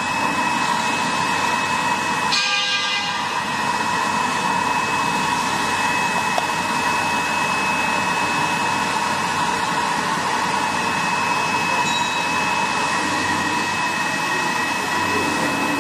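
Vertical wet glue labeling machine running, its motors and conveyor carrying tin cans through: a steady mechanical drone with a constant high whine.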